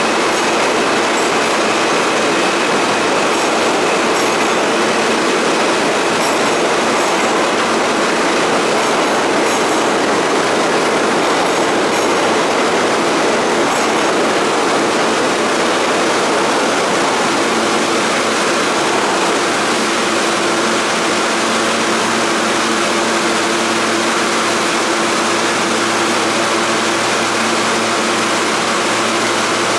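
An R160 subway train standing at the platform with its doors open, its air conditioning and auxiliary equipment giving a steady loud drone with a low hum that firms up about halfway through.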